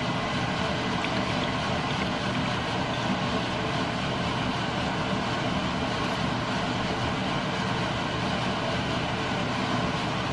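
A steady rushing noise with a low hum, unchanging, the kind made by a running fan or similar machine.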